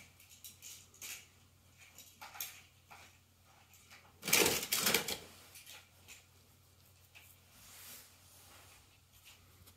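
Small toy cars being picked up and set down in a row on carpet, plastic and die-cast bodies clicking and clattering against each other, with a louder clatter about four seconds in.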